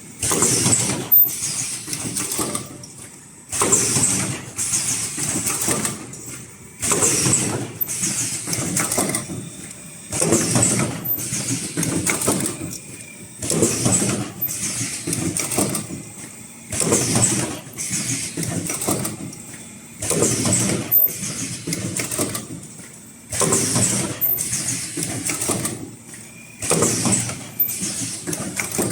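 Automatic cup-shaped mask headband welding machine running through its cycle: a loud burst of mechanical noise about every three seconds, nine times, each dying down before the next, over a faint steady high tone.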